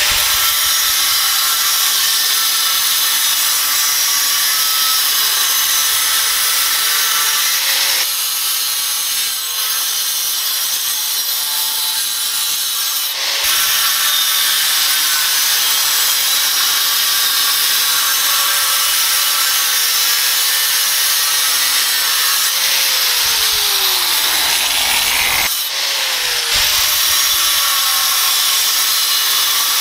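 Angle grinder with a Graff Black diamond cut-off wheel cutting through thin sheet metal: a loud, steady, hissing screech. The level dips briefly about three times as the cut eases off.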